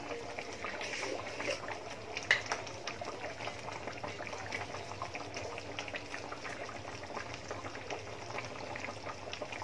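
Coconut milk sauce with fish simmering in a wok, a steady bubbling with many small pops.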